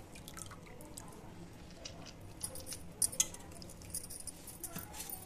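Handfuls of soaked, drained urad dal being scooped from a steel bowl of water and dropped into a plastic mixer-grinder jar: soft wet squishing and dripping with scattered light clicks and clinks, the sharpest two about three seconds in.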